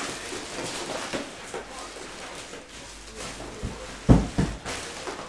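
Handling noise of trading-card boxes being moved on a table: rustles and small knocks, then two heavy dull thumps about four seconds in.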